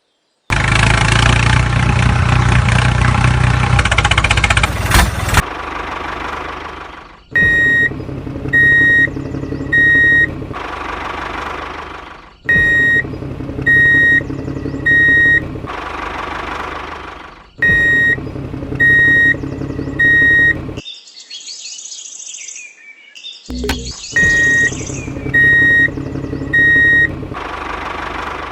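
Engine sound running loudly for about five seconds, then a looped pattern repeating four times: an engine hum with three short, high electronic beeps about a second apart, like a vehicle's reversing alarm.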